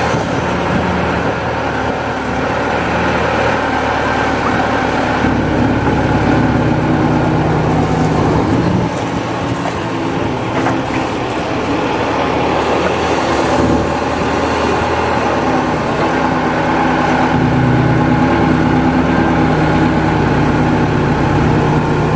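Kato HD512E hydraulic excavator's diesel engine running steadily under working load, heard close up from the machine, as the boom and bucket dig and dump mud.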